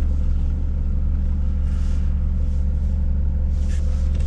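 Scania S500 truck's 13-litre inline-six diesel running under light load as the tractor unit rolls slowly, heard inside the cab: a steady low drone with a faint steady whine above it and no rattle.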